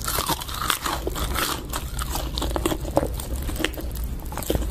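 Close-up crunching and chewing of crispy fried chicken, a dense run of sharp crackles and crunches over a steady low hum, cutting off suddenly at the end.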